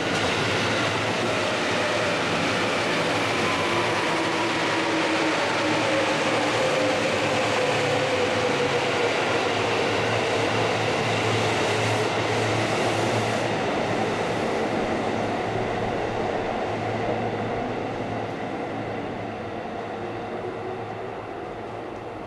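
Saikyō Line 205-series electric commuter train running past on the tracks, a steady rumble of wheels on rail with a whine that falls slowly in pitch. It fades away in the last few seconds.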